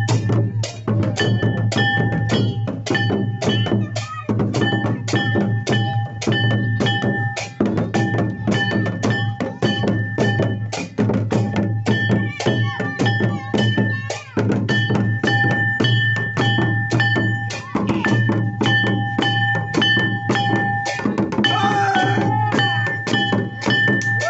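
Santali Sohrai folk music: tumdak' and tamak' drums beating a fast, even rhythm over held high notes, with a wavering melody line coming in near the end.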